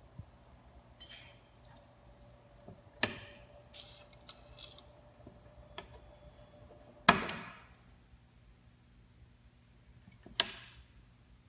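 Toggle switches on a converted ATX computer power supply clicking: three sharp clicks, the loudest about seven seconds in, with lighter handling noise before them. A faint steady tone cuts off at the loudest click, over a low steady hum.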